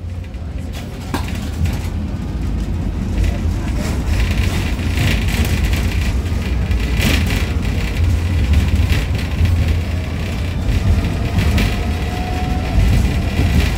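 MUV tram heard from inside its saloon while running on the rails: a steady low rumble from the wheels and running gear with scattered clicks and knocks, slowly getting louder as it gathers speed. A faint rising whine comes in near the end.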